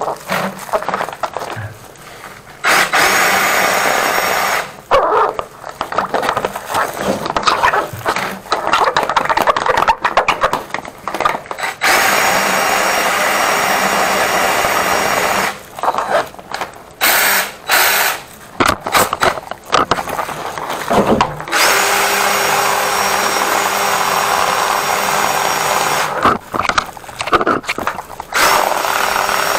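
Flexible-shaft drain-cleaning machine spinning its shaft in a clogged urinal drain line. The motor runs in spells of several seconds, stopping and starting again several times, with short knocks in the gaps.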